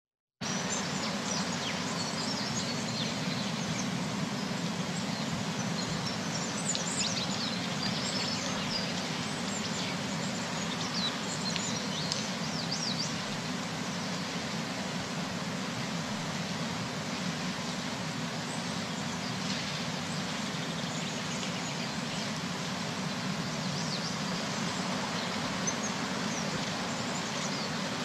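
Forest ambience recording: birdsong chirps scattered over a steady rushing background hiss, starting suddenly about half a second in. The chirping is busiest in the first half and picks up again near the end.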